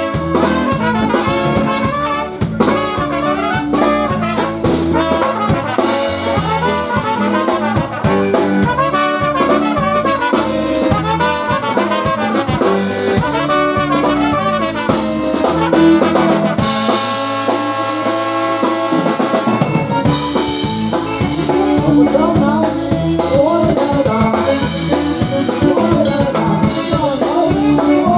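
Live polka band playing an instrumental polka: two trumpets carrying the tune over a concertina and drum kit, with a steady beat. About two-thirds of the way through, the band holds one long chord for about three seconds, then the tune picks up again.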